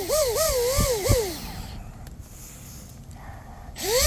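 Whine of an RC catamaran's 2948-size brushless motor drive run out of the water, props spinning in the air. Several quick throttle blips rise and fall in pitch, then it winds down. After a pause it climbs back to a steady high whine near the end. Smooth sounding: the drive is running well.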